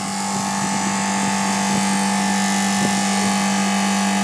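Refrigeration condensing unit running steadily: Copeland compressor and condenser fan started direct-on-line by a newly fitted contactor and overload, with a strong steady hum over a wash of fan noise.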